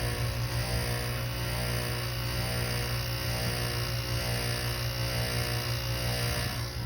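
Carrier 5,400 BTU window air conditioner running: a steady low hum from its compressor and fan, with a stack of even tones above it.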